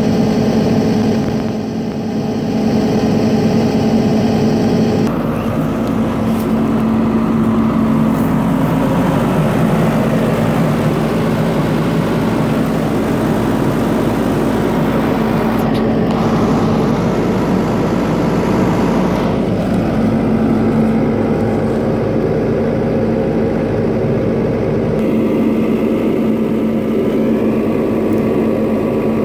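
John Deere 75D hydraulic excavator's diesel engine running at a steady speed, a constant pitched hum with no change in revs.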